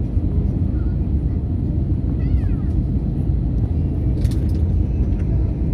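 Steady low roar of an Airbus A320 airliner's cabin noise on approach, heard from inside the passenger cabin.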